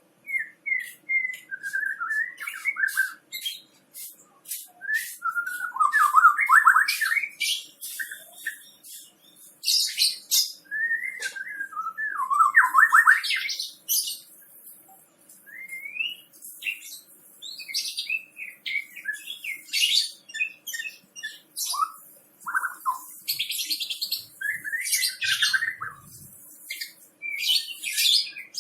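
White-rumped shama (murai batu) singing a long, varied song: loud whistled phrases that glide up and down, mixed with rapid harsh chatters and ticks, broken by short pauses.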